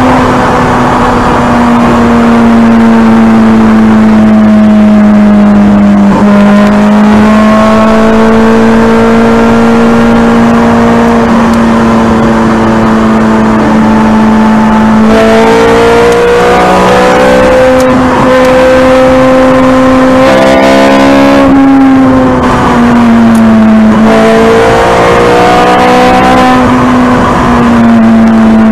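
Ferrari 430 Scuderia's 4.3-litre naturally aspirated V8 running hard at high motorway speed, heard from inside the cabin over road and wind noise. The engine note falls and climbs again a few times as the throttle is eased and reapplied.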